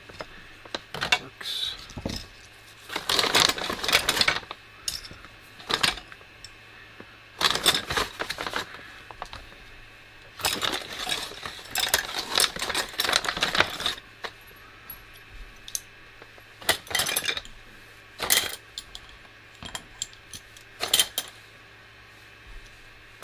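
Small hard parts of a disassembled quadcopter frame, including little screws, clinking and rattling as they are handled and packed away. The sound comes in three longer clusters of clatter, then a few single clicks near the end.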